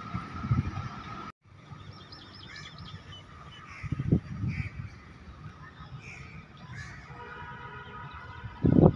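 Birds chirping and calling in a quiet spell beside the railway line. In the last second or so a steady multi-tone horn starts up: the horn of the approaching diesel locomotive.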